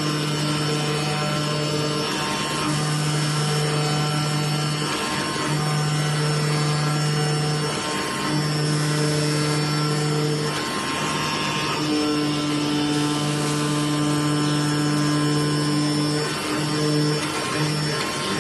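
Flatbed CNC digital cutter cutting cork gasket sheet: a low machine hum that breaks off and restarts every one to three seconds as the cutting head moves, over a constant rushing noise.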